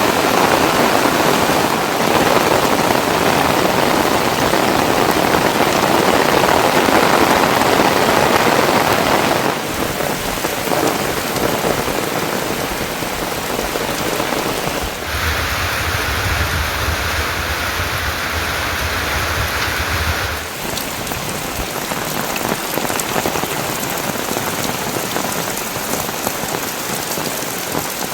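Heavy rain falling steadily. For about five seconds midway a low rumble joins it.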